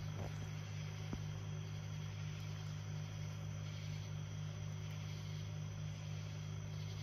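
A steady low mechanical hum from a small motor, with a faint regular pulse in it. A single light click comes about a second in.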